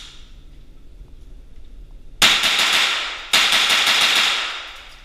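Semi-automatic rifle converted to .22 fired in rapid succession: two quick strings of shots about two seconds in, one right after the other, each shot ringing on in the enclosed tunnel range.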